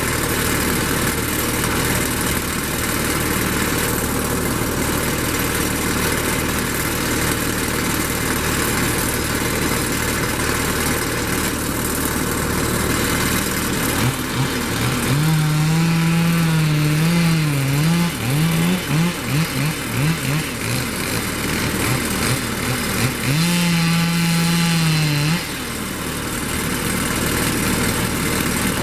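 An engine idles steadily. About halfway through, a chainsaw comes in at full throttle, is blipped up and down several times, then runs flat out again near the end, as in cutting wood.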